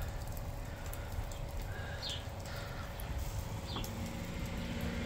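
Wood fire under a spit-roasting whole lamb crackling with scattered sharp pops over a steady low rumble, with a few short high chirps.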